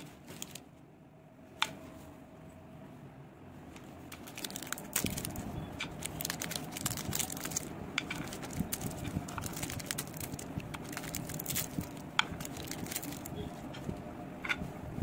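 Crinkling and crackling of plastic candy wrappers as they are twisted open and pulled off the sweets by hand, with a few separate sharp clicks; the crackling is densest through the middle.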